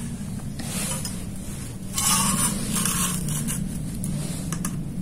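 Steel try square scraping and sliding over a steel plate as it is set in place for marking, in several short scrapes with a few light metal ticks.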